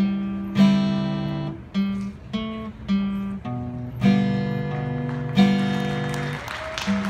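Background music: an acoustic guitar strumming and picking chords, each chord starting sharply and ringing out.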